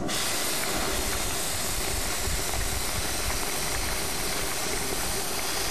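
Henrob 2000 oxy-acetylene torch cutting half-inch hot-rolled steel: the cutting oxygen and flame give a steady hiss over a low rumble. The hiss starts abruptly as the oxygen jet comes on.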